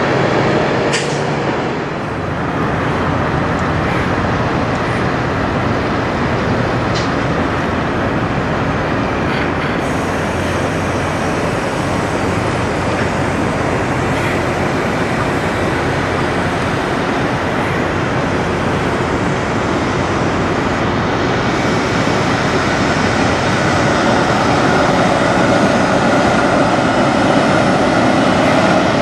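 Diesel engines of semi trucks running as tractor-trailers move past, a steady loud rumble that grows a little louder near the end.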